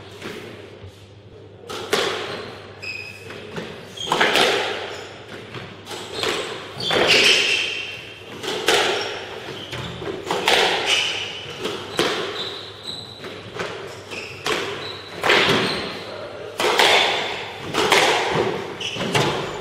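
Squash rally: the ball cracking off rackets and the court walls about once every second or so, beginning about two seconds in, with short high squeaks of shoes on the wooden court floor between the hits.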